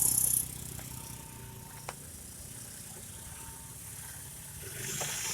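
A vehicle engine idling steadily, with a single sharp click about two seconds in. A high hiss stops about half a second in and comes back near the end.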